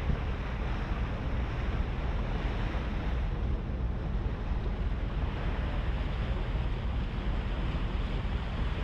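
A HADAG harbour ferry under way: wind rushing over the microphone and water washing past the hull, over a low steady rumble.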